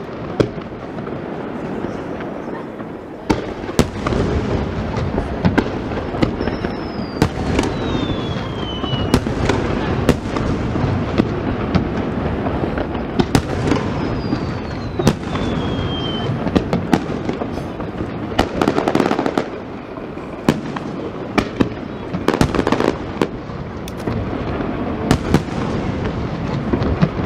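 Aerial fireworks going off in rapid succession: a continuous barrage of bangs and crackle, with heavier bursts near the middle and toward the end. Twice a whistle falls in pitch over two or three seconds.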